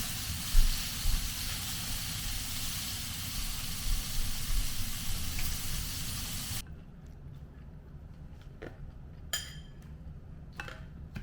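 Food sizzling in a hot frying pan, a steady hiss with a couple of knocks of the pan about a second in. It cuts off abruptly about six and a half seconds in, leaving a quiet room with a few light clicks and taps.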